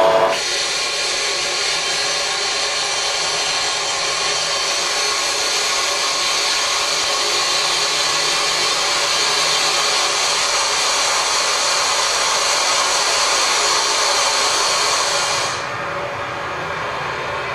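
Steady loud hiss of air and machinery in a rock tunnel under construction. About fifteen seconds in it drops to a quieter, duller machine noise.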